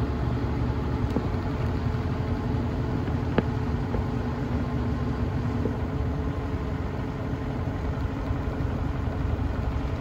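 Front-loading washing machine on its spin cycle, the drum spinning at high speed with a steady whirring hum.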